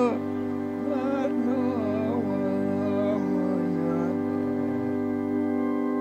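Slow, sad live music: steady held keyboard chords, with a wavering wordless melody line over them that fades out about four seconds in.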